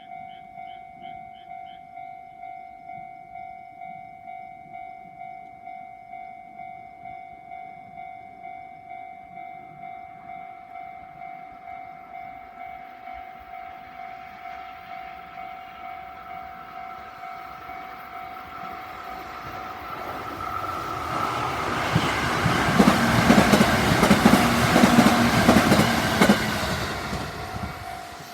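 Level crossing warning bell on the JR Tokaido Main Line ringing in a steady repeating beat, about two to three strokes a second, while a train approaches, runs through at full loudness for several seconds near the end with its wheels clattering over the rails, and fades away as the bell keeps ringing.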